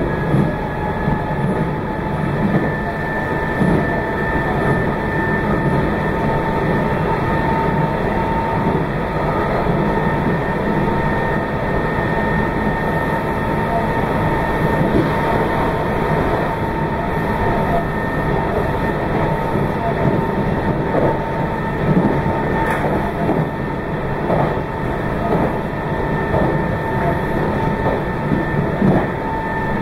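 Meitetsu 2200 series electric train running at speed, heard from on board: a steady low rumble under a steady whine. In the second half, wheels click over rail joints in quick runs.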